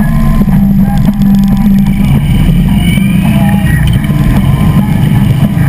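Harley-Davidson V-twin motorcycle engine running steadily at cruising speed, heard from a camera mounted on the bike, mixed with wind and road noise.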